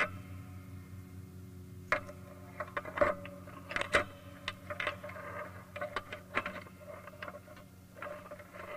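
Irregular light clicks and knocks, a few a second, starting about two seconds in and thinning out near the end, over a steady low hum.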